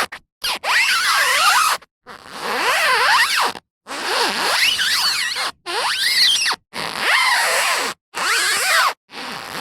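Rubber tyre squeaking as it is turned slowly against a road surface: about seven separate squeaks, each a second or so long, their pitch wavering up and down, with short silences between them.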